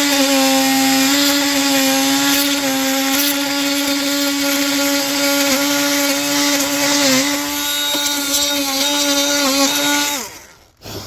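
Handheld electric sander running steadily as it sands down a cured Bondo filler patch on wooden trim. Its pitch sags briefly a few times under pressure. About ten seconds in it winds down and stops, followed by a short knock.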